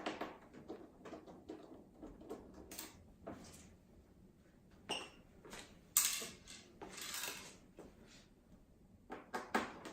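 Light clatter of small metal hand tools being handled against a hard surface: scattered clicks and knocks with brief rustles, a sharper knock about six seconds in.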